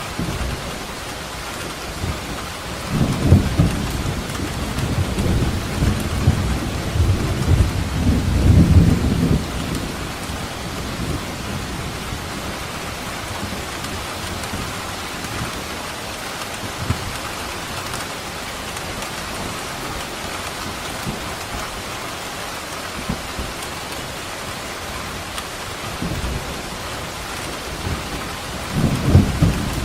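Steady heavy rain with rolling thunder: a long low rumble from about three seconds in to about ten seconds, and another starting near the end.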